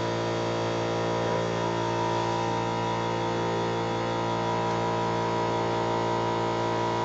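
Steady electric motor hum, many even tones held level without change.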